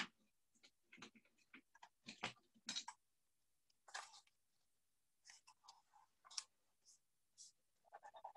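Faint, scattered scratches and clicks of a crayon being coloured across paper. Near the end they turn into quick, even back-and-forth strokes, about six a second.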